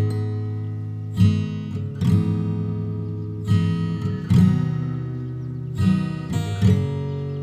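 Background music: an acoustic guitar strumming chords, a strum about every second with the notes ringing on between them.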